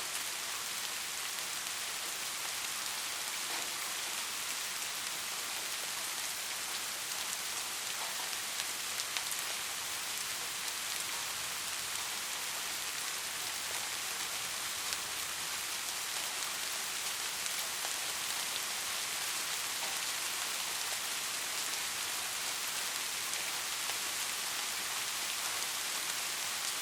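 Soft, steady rain falling, an even hiss with faint scattered drops pattering on a surface.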